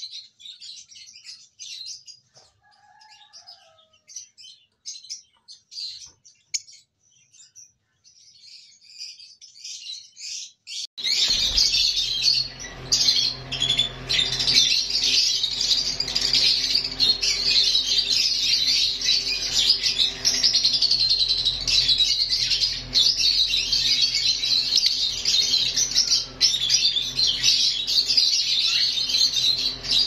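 Caged lovebirds chirping: scattered high chirps at first, then about eleven seconds in a dense, unbroken high-pitched chattering from the flock, over a steady low hum.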